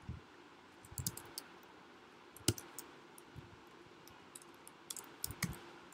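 Keystrokes on a computer keyboard as a line of code is typed: a small cluster of clicks about a second in, a sharp single click near the middle, and a few more near the end, with pauses between.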